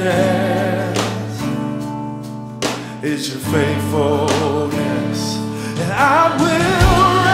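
A Christian worship song with a sung vocal melody over sustained backing chords.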